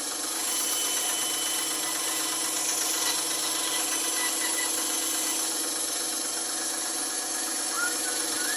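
Bandsaw running steadily, a constant motor hum with blade rattle, getting slightly louder about half a second in.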